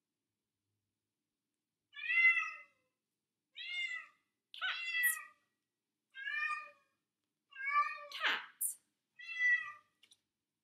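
Domestic cat meowing six times, one call about every second and a half, starting about two seconds in.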